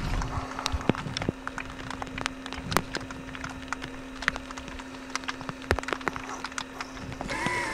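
African wild dogs and a honey badger scuffling at a run: scattered footfalls and sharp clicks over a steady low hum. A short animal call rises and falls near the end.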